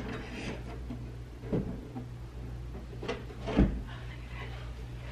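Knocks and clunks of a large flat-screen TV being worked onto its wall mount: a few separate knocks, the loudest about three and a half seconds in, over a steady low hum.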